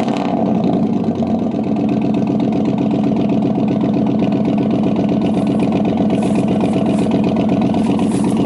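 Vehicle engine idling steadily and loudly just after starting, then cutting off abruptly near the end.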